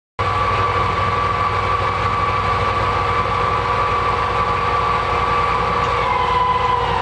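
Metal lathe running under power while set up for thread cutting: a steady motor-and-gear hum with a high whine, which cuts in abruptly at the start and dips slightly in pitch about six seconds in.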